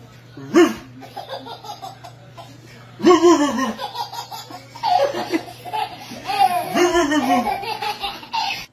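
A baby laughing in about four bursts: a short one near the start, then longer runs of laughter from about three seconds in.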